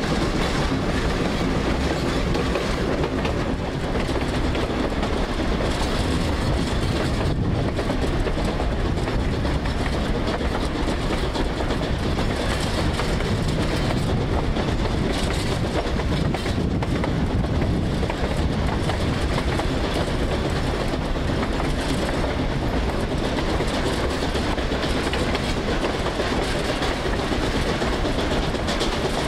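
Durango & Silverton narrow-gauge steam train running along the track: a steady, loud rolling noise of the wheels on the rails.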